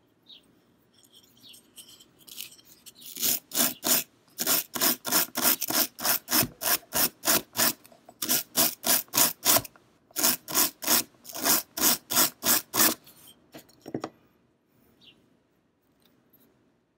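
Small stainless steel wire hand brush scrubbed back and forth over the steel spine of a straight razor to clean it, fast scratchy strokes about four or five a second. The strokes start about three seconds in, break off briefly twice and stop about thirteen seconds in.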